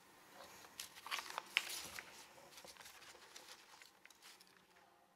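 Faint handling noise at a lectern microphone: soft rustling and a cluster of light clicks and taps about a second in, thinning out to scattered ticks.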